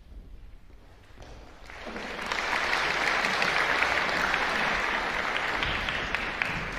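Audience applauding. A quiet pause is followed, about a second and a half in, by clapping that builds quickly, holds steady and begins to fade near the end.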